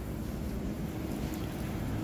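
Steady low rumble of shop background noise, with no distinct event.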